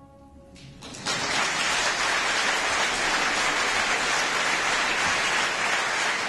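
Audience applauding, breaking out suddenly about a second in as the final orchestral chord fades, then holding steady.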